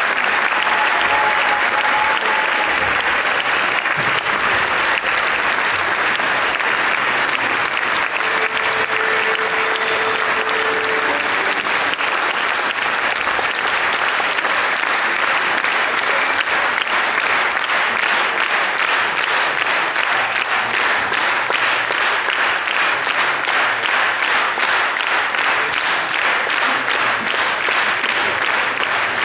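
Theatre audience applauding the dancers' curtain call; about halfway through, the clapping falls into a steady beat in unison.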